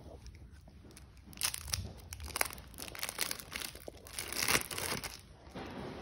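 Thin plastic wrapper of a processed cheese slice crinkling as it is peeled away from the slice by hand, in an irregular run of rustles. The rustles start about a second and a half in and are loudest past the middle.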